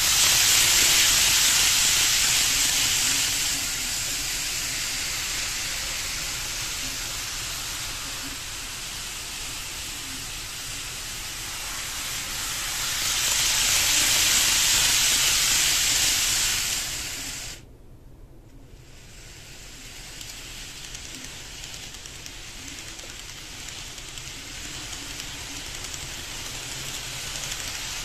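KATO N-gauge 500 series Shinkansen model train running past on track, a steady hissing rolling noise. It swells louder twice, then drops abruptly quieter about two-thirds of the way through.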